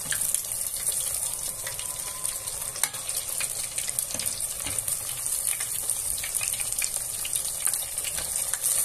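Breaded chicken strips deep-frying in hot oil: a steady sizzle with many small crackles and pops.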